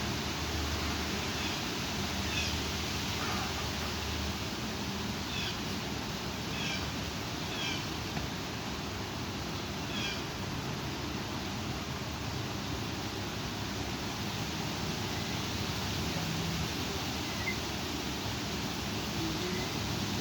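Steady rush of strong thunderstorm wind. In the first half, about six short high calls from an animal, each a quick falling note.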